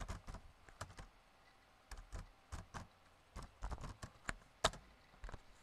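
Typing on a computer keyboard: irregular single keystrokes, with one sharper click a little over four and a half seconds in.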